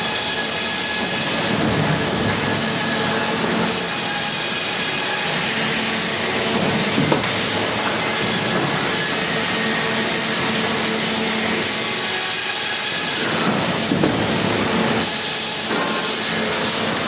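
Sawmill log carriage and its machinery running: a steady mechanical hum with a dense hiss over it, a couple of sharp knocks, and the hiss easing briefly before picking up again near the end.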